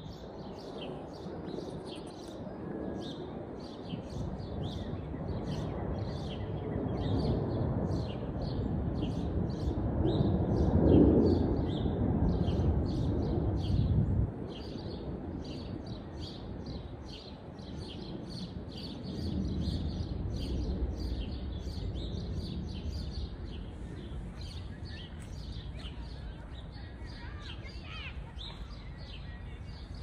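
Many small birds chirping busily from the hedges and trees, short high chirps several times a second all the way through. Under them a low rumble builds, is loudest a little before halfway and cuts off suddenly about halfway through; a weaker low swell comes and goes later.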